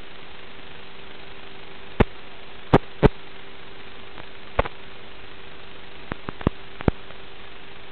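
Static hiss with a steady hum, the audio of an analog FPV video receiver's recording, broken by about eight sharp clicks and pops at uneven moments, several of them bunched near the end.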